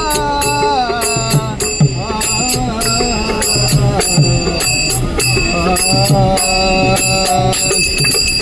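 Indian devotional bhajan music in raga Bhairavi: a wordless sung alaap, the voice gliding and wavering on held notes. Ringing cymbal strikes and low drum beats keep a steady rhythm underneath.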